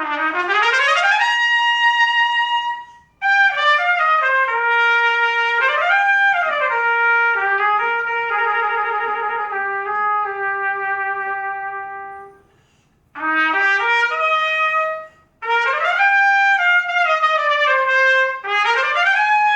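Trumpet played in phrases of sweeping glissandi up and down and held notes, one held note with vibrato, with short breaks between phrases.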